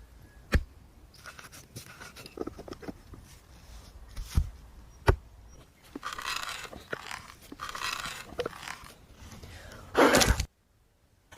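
A few sharp knocks, then several rasping scrapes and a loud burst near the end.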